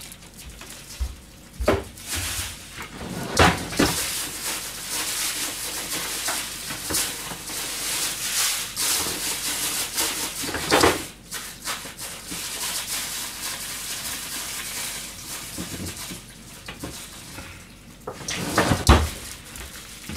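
Kitchen work sounds: a few sharp knocks and clatters of pots or utensils over an uneven hiss, with the loudest knocks near the start, in the middle and near the end.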